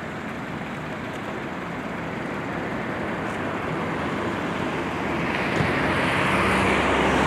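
City street traffic noise, a steady wash of passing vehicles that grows louder from about five seconds in, when a low engine or motor hum joins as a large vehicle comes close.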